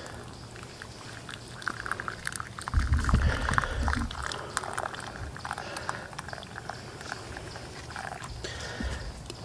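Coffee being poured in a thin stream from a camp coffee pot into a wooden cup, with a brief low rumble about three seconds in.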